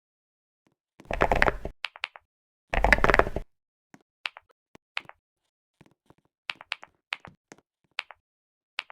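Computer keyboard keys being pressed one at a time, each giving a sharp click, some doubled, at one or two a second. Two louder, longer thuds come first, about one and three seconds in.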